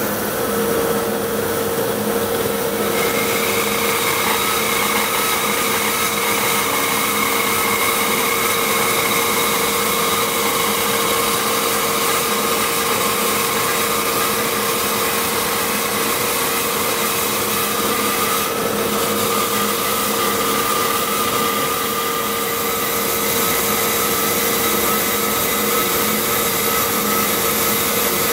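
A 3-horsepower bandsaw with a wide carbide-tipped, variable-pitch blade resawing a wide board along its length, over the steady rush of a dust collector. A higher whine comes in about three seconds in and holds steady through the cut.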